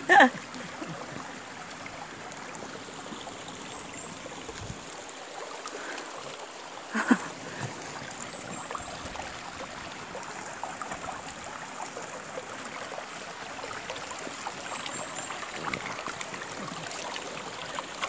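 Shallow mountain stream running over rocks: a steady rush of flowing water. A brief sharp sound stands out about seven seconds in.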